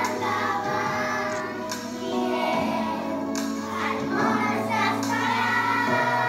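A group of young children singing together in unison, with instrumental accompaniment holding steady low notes beneath the voices.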